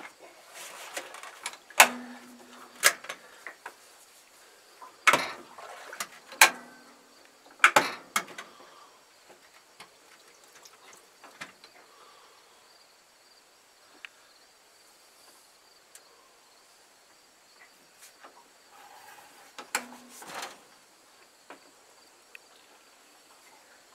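Sharp knocks and clacks from handling an electric trolling motor's shaft and deck mount, coming in clusters about two seconds in, around five to eight seconds in and near twenty seconds, with quiet stretches between; a few knocks leave a short low ringing note.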